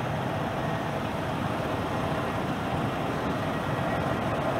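Steady rumble of a CRJ regional jet's rear-mounted turbofan engines as it rolls out on the runway just after touchdown, with a faint engine whine over the noise.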